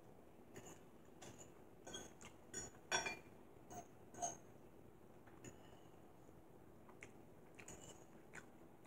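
Metal fork clinking and scraping against a ceramic plate while eating: a scatter of faint, light clinks, the loudest about three seconds in.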